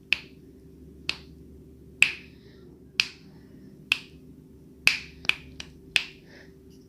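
Finger snapping: five snaps about a second apart, then four quicker ones near the end, over a faint steady low hum.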